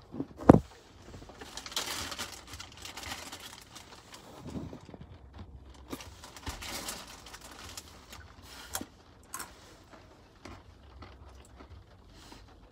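Handling noise from a phone being repositioned inside a car: a sharp knock about half a second in, then faint rustles and scattered small crunches and clicks from almonds being eaten.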